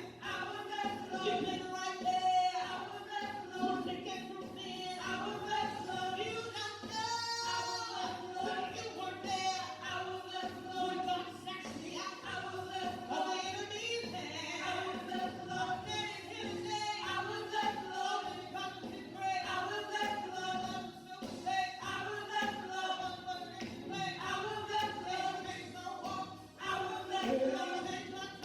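Gospel choir singing.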